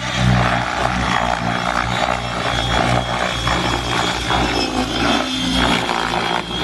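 Align T-Rex 600E electric RC helicopter in aerobatic flight: rotor blade noise with a steady high-pitched whine.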